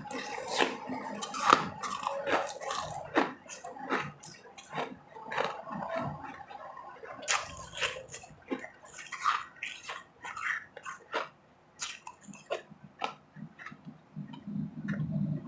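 Close-miked biting and chewing of ice: irregular sharp crunches, several a second, with a few short pauses.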